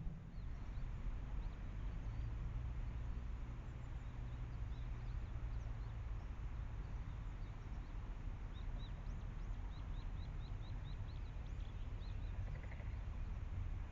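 Outdoor rice-paddy ambience: a steady low rumble with faint, high bird chirps. A quick run of short chirping notes comes about two-thirds of the way through.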